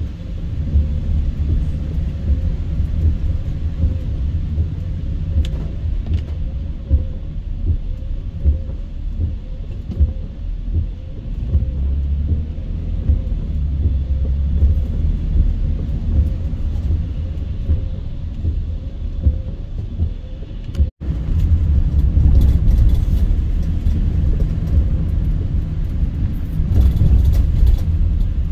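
A car driving, with a steady low road rumble. The sound cuts out for an instant about twenty seconds in, and faint ticking is heard after that.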